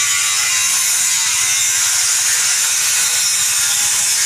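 A loud, steady high-pitched hiss of background noise, unchanging throughout.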